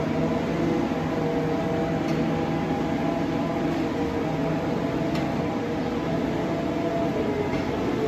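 Wheel loader's diesel engine running at a steady speed: a constant low rumble with several steady tones that do not rise or fall.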